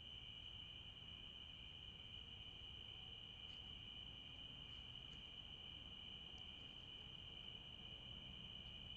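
Faint, steady chorus of crickets, an unbroken high-pitched trill, with a few faint ticks.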